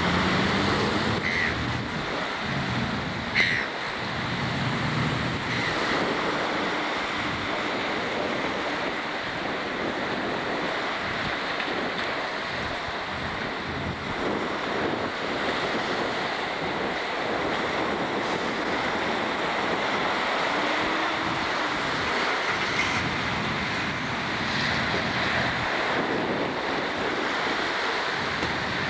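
Wind buffeting the microphone over rough surf breaking along the shore, a steady rushing noise. A brief knock about three and a half seconds in.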